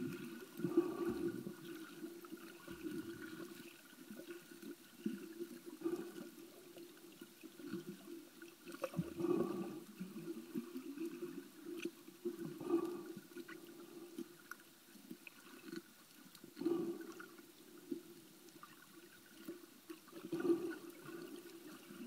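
Water noise picked up by a camera held underwater, swelling about every three to four seconds.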